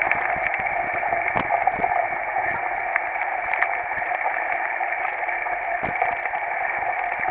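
Heavy rain and wind on a bike-mounted camera while a mountain bike rolls along a wet dirt track: a steady hiss with scattered sharp clicks.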